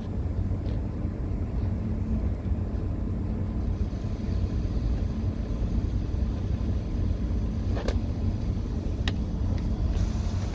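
Steady low rumble and hum of a ship's machinery heard on deck, with two light ticks about eight and nine seconds in.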